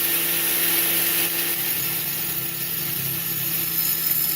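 Angle grinder with a masonry-cutting disc running steadily through a concrete paver, with a vacuum cleaner running alongside to suck up the cutting dust.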